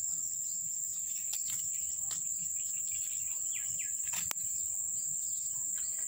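Steady, high-pitched trilling of insects. A few short scratches break in, from a cat pawing at loose soil.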